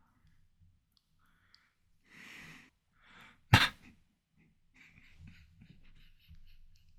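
Close-miked eating of ripe watermelon. A breath is followed by one sharp, loud crunching bite, then quieter wet chewing with many small clicks.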